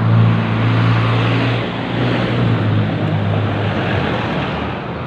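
Street traffic: a motor vehicle's engine running close by over a steady wash of road noise. The engine hum eases off about one and a half seconds in.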